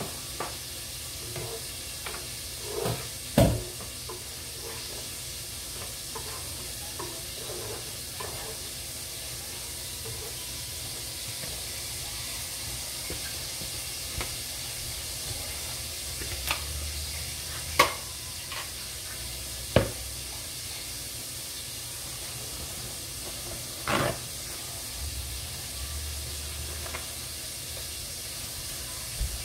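Food sizzling and simmering in pots on a stovetop, a steady hiss, with a handful of short sharp knocks and clinks of dishes and utensils.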